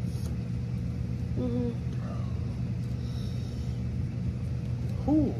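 A steady low droning rumble with a faint steady tone above it. Over it comes a short appreciative "mm" about a second and a half in, and a brief "ooh" near the end from someone tasting food.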